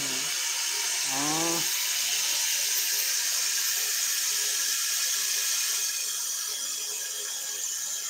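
Steady hiss of pressurised gas rushing through a chest freezer's refrigerant lines during a system flush, blowing out of the open tube end; it eases slightly near the end.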